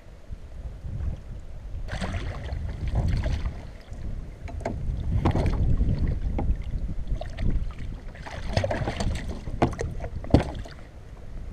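Wind buffeting a kayak-mounted camera's microphone, with water slapping and splashing and the clatter of handling as a hooked spurdog is played and brought alongside the kayak. A sharp knock about ten seconds in is the loudest sound.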